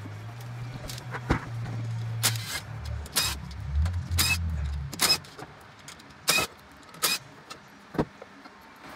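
A small cordless power tool's motor whirring steadily as the clutch cover's 8 mm perimeter bolts are run out, its pitch dropping about midway through, and it stops about halfway through. Through this come sharp metal clinks, roughly one a second, about eight in all.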